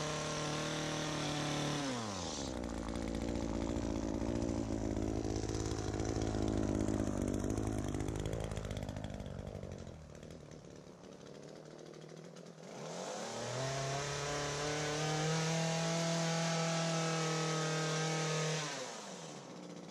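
Two-stroke engine of an ECHO PAS2620 power head driving an articulating hedge trimmer, at full throttle while cutting. It drops to idle about two seconds in, revs up again about thirteen seconds in and holds high for several seconds, then drops back to idle near the end.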